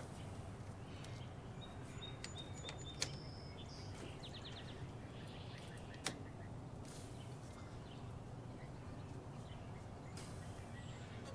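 Faint outdoor background with a steady low hum, birds chirping briefly, and three sharp clicks about three seconds apart.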